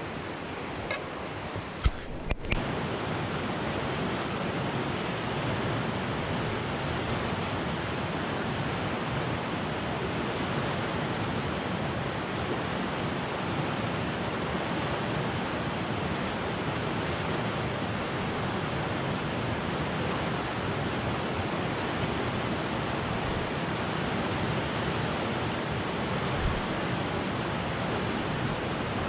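Steady rushing of a flowing stream, an even hiss with no break. About two seconds in there are a couple of sharp clicks, and then the rush is a little louder.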